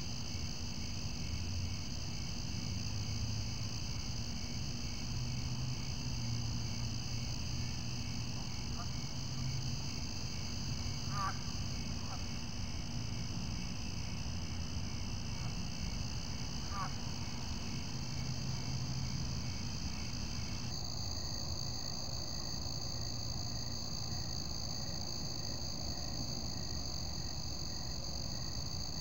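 Night-time chorus of crickets and other insects: steady high-pitched trilling with a fainter pulsing call beneath. The mix changes abruptly about three quarters of the way through.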